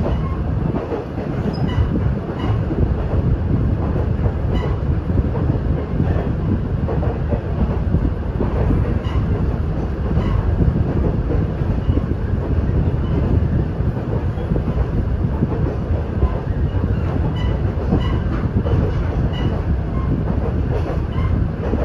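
Diesel railcar running along the line, heard from inside the passenger car: a steady low rumble of engine and wheels on the rails, with scattered light clicks.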